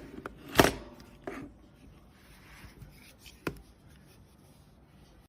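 Hands handling a Bluetooth speaker alarm clock: a few short knocks and clicks, the loudest just under a second in and a sharp click about three and a half seconds in, with quiet between.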